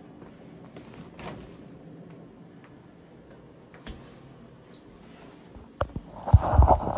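Quiet room tone with a few faint clicks and a brief high squeak just before five seconds. In the last second, loud low thumps and rubbing: handling noise on the handheld phone's microphone.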